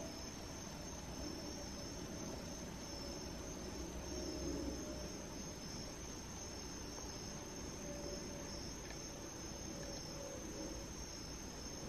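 Crickets chirping steadily and faintly, a continuous high-pitched trill, over a low background hiss.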